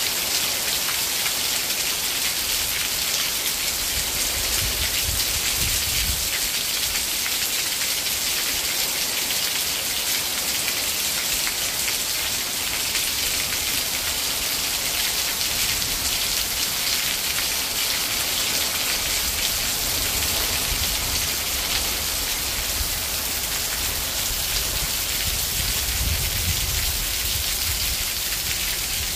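Heavy rain falling steadily in a dense, even hiss of drops, with a low rumble that comes and goes underneath.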